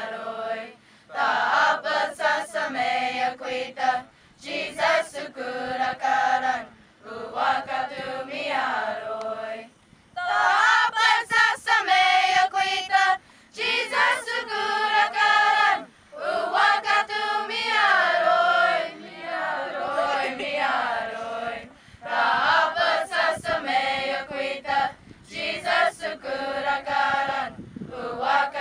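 Youth choir of girls and women singing a Comanche hymn a cappella, in sung phrases with brief pauses between them.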